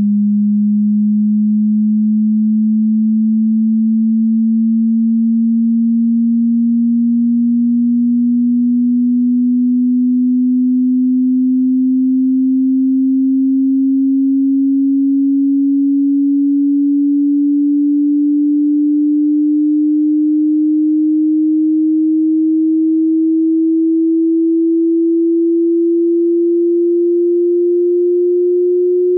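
A pure electronic sine test tone, low in pitch, gliding slowly and evenly upward at a steady loudness. It is the frequency sweep of a hearing test.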